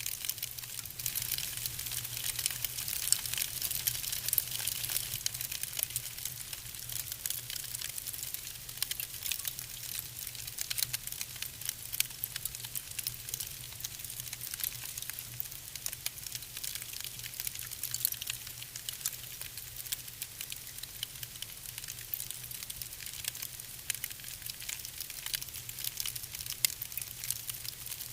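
Wood fire burning in a fireplace, crackling continuously with many small pops over a soft hiss, and a steady low hum underneath.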